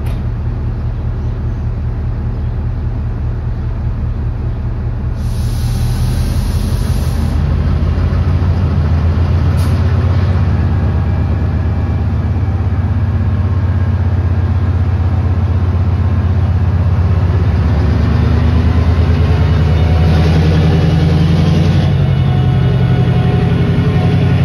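Class 68 diesel locomotive's Caterpillar V16 engine running steadily while standing, getting louder about eight seconds in. A brief hiss sounds about five to seven seconds in.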